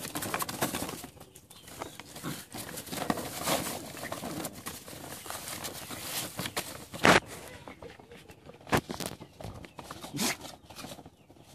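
Puppies and their mother dog scuffling and moving about on a plastic tarp: rustling and scraping with a few sharp knocks, the loudest about seven seconds in.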